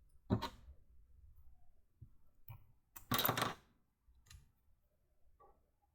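Plastic LEGO pieces being handled and fitted together: a sharp click, a few light taps, and a louder short rattle of parts about three seconds in.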